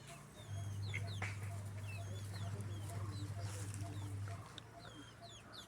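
Chickens clucking, with many short high-pitched peeps throughout, over a steady low hum that stops about a second before the end.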